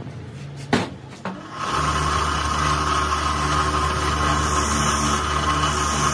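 Two sharp knocks about a second in, then a bench grinder's wire wheel starts up and runs steadily, a loud motor hum with a constant scratching hiss as it brushes rust off the ball stud of a steering tie rod end.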